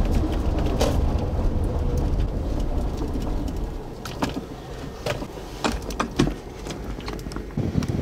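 Car cabin rumble from a chase vehicle driving, slowly getting quieter, with scattered sharp clicks and taps in the second half.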